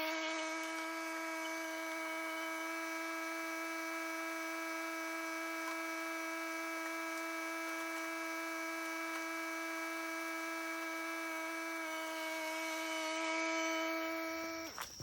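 Tractor running under load with a steady high whine, likely its hydraulics working the front forks; it swells slightly, then cuts off near the end.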